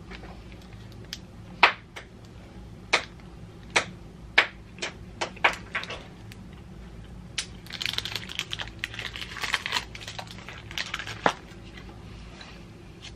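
Scattered sharp wet clicks from chewing a bite of candy bar, then about four seconds of candy-bar wrapper crinkling as it is handled and peeled back.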